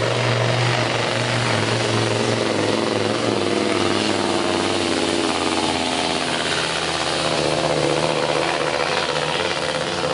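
Diesel engine of a modified MAN pulling truck running flat out under heavy load as it drags a weighted sled, a loud, steady, unbroken drone.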